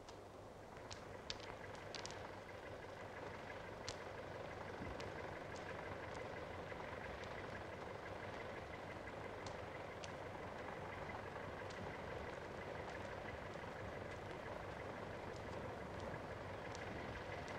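Faint steady drone of a distant engine, with a few scattered sharp clicks.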